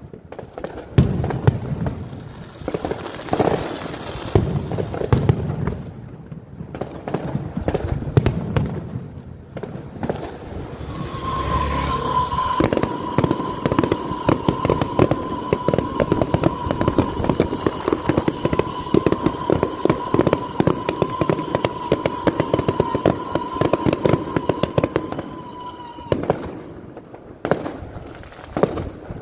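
An aerial fireworks display going off in rapid, irregular volleys of bangs and crackles. From about a third of the way in until near the end, a steady high whistle holds over the crackling.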